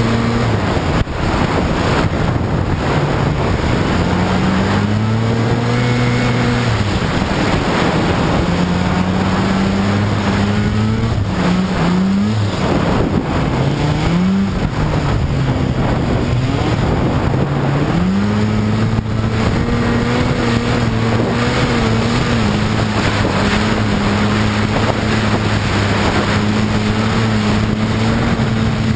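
Snowmobile engine running at speed. About ten seconds in, its pitch drops and climbs several times as the throttle is eased off and opened again, then it settles back to a steady note, with wind buffeting the microphone throughout.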